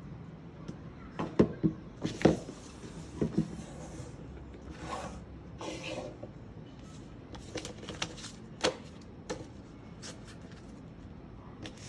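Hands handling a laptop and its packaging: scattered light clicks and knocks with a few short rustles.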